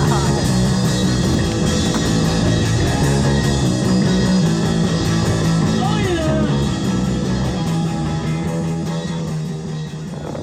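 A rock band playing with electric guitars, with a few sliding guitar notes about six seconds in; the music starts to fade out near the end.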